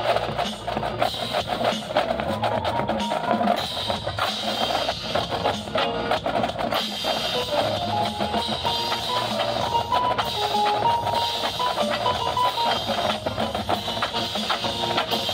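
Marching drumline playing a percussion show: rapid snare and bass drum patterns, with a melody of short pitched notes carried over the drumming.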